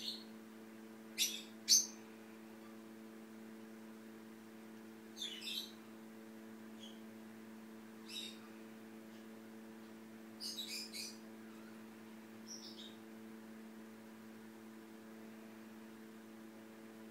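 Cats licking each other's fur at close range: short, scattered, high rasping licks, the loudest two about a second and a half in. A steady electrical hum runs underneath.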